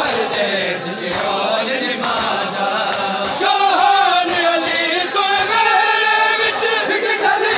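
Crowd of men chanting a noha, a mourning lament, together in unison. Sharp slaps of matam (chest-beating) keep a regular beat under it, about one every 0.7 seconds.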